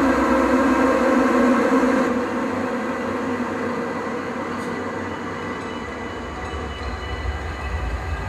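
Dense drone music from a live noise/ambient set: layered sustained tones over a hiss, heavy until about two seconds in, then thinner and quieter, with a deep low rumble swelling back near the end.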